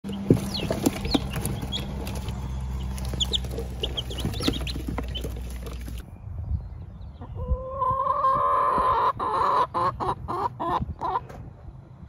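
Young chicks peeping in a brooder, a crowd of short rising chirps over a steady low hum. After a cut, an adult chicken calls loudly in drawn-out notes for a few seconds, breaking into shorter clucks near the end.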